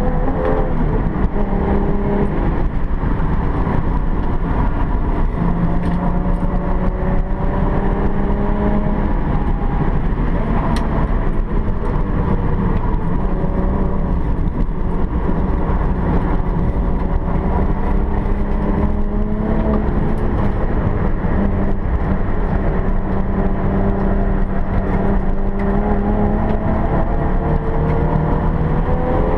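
Alfa Romeo 164's engine heard from inside the cabin under hard driving: its pitch climbs as it accelerates and falls back at each shift or lift, several times over.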